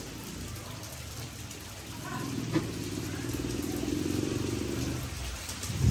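A motor vehicle passing close by: a low engine hum that builds from about two seconds in and fades near the end.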